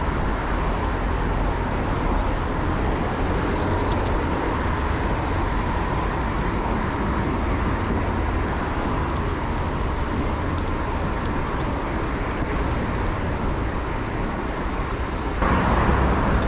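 Wind rumbling on the microphone, with city traffic noise, while riding a bicycle through town; it gets louder near the end.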